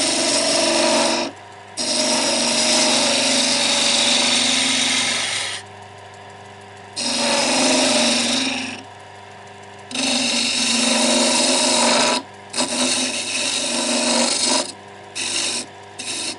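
Turning tool cutting into wood spinning on a lathe, shaping a curve, over the lathe's steady hum. It makes four long cuts of a few seconds each, then shorter, choppier touches near the end.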